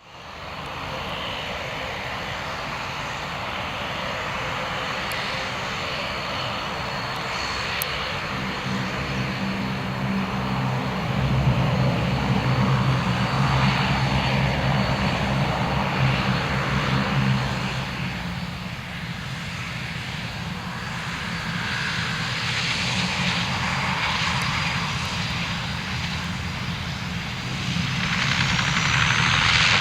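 Bombardier Dash 8-402 (Q400) turboprop airliner's Pratt & Whitney PW150A engines and propellers running, with a steady low propeller hum over a high turbine whine. The sound swells for several seconds in the middle, eases, then grows louder again near the end.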